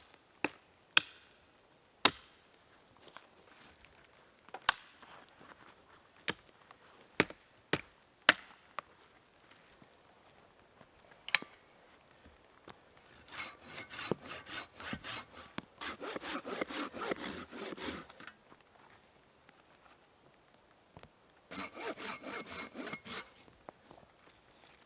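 A small hand saw cutting through wood in quick back-and-forth strokes, in two runs separated by a pause. Before the sawing come a dozen or so scattered sharp knocks or cracks.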